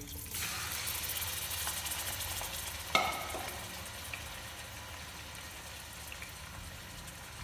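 Minced beef sizzling in hot oil in a cooking pot just after it is tipped in, the sizzle easing off gradually. A single sharp clink about three seconds in.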